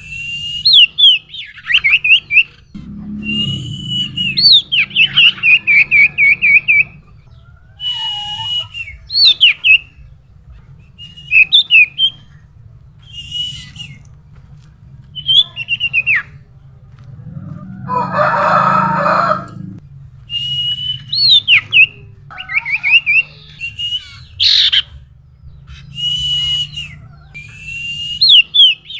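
Common iora (cipoh, sirtu) calling over and over: a held whistled note breaks into quick down-slurred chirps and fast trills, a lure call for drawing in other ioras. About two-thirds of the way through comes a harsher, noisier sound lasting about two seconds, and a low steady hum runs underneath.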